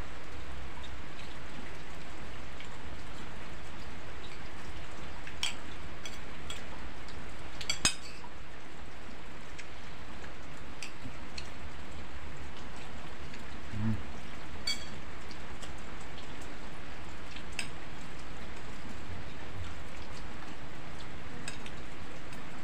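Steady rain falling as a constant hiss, with a few light clinks of cutlery on dishes now and then.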